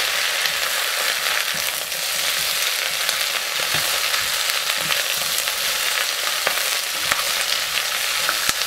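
Sliced vegetables (snow peas, onion, celery and bell peppers) sizzling as they are stir-fried in a hot non-stick pot: a steady hiss with scattered light clicks and scrapes of the spatula against the pot.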